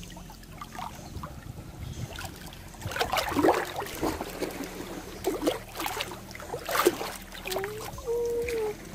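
Shallow seawater splashing and sloshing as a child sits and kicks in it, scooping up wet sand. Several splashes, the loudest about three and a half seconds in and just before seven seconds, with a short child's voice near the end.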